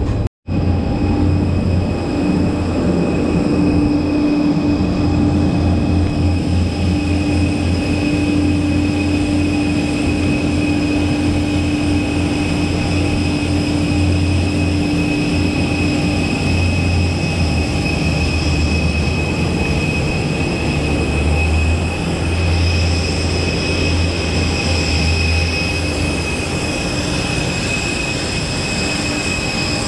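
Steady high jet whine and rumble of airliners on an airport apron, with several held whining tones over a low rumble. The sound drops out for an instant near the start.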